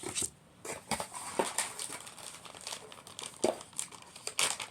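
Packaging crinkling and rustling as small kit items are handled, with scattered light clicks.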